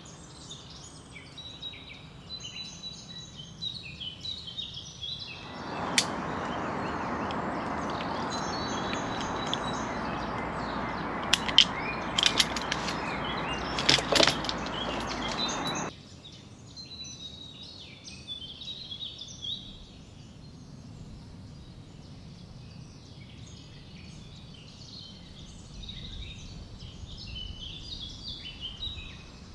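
Birds chirping in the trees. About five seconds in a steady rushing noise starts, with a few sharp clicks in it, and it cuts off suddenly around sixteen seconds in.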